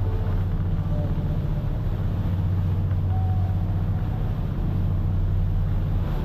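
Boat engine running steadily under way, a constant low drone.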